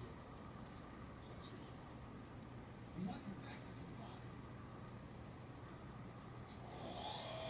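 A cricket chirping steadily in fast, even, high-pitched pulses, about eight a second.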